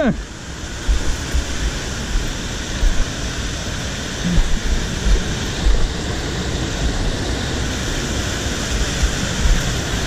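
Rushing white water of a mountain stream cascade, a steady roar, with irregular low bumps underneath.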